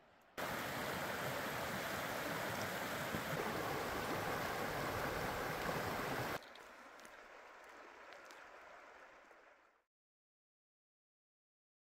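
Creek water rushing, a loud, even sound that starts and stops abruptly after about six seconds. A much fainter steady hiss follows, then fades out to complete silence near the end.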